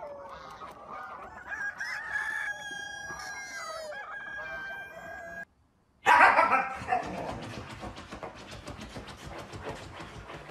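Roosters crowing over hens clucking, long held and gliding calls, for about five and a half seconds. After a brief silence, a loud burst, then a husky scratching rapidly at a fabric sofa cushion.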